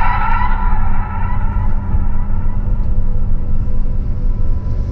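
Pickup truck driving along a dirt road, heard from inside the cab: a steady engine and road rumble. A ringing tone fades out over the first second or so.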